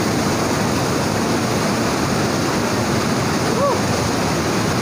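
Water rushing and pouring over rocks in a small waterfall and shallow stream, a steady, even rush. A brief voice sound comes about three and a half seconds in.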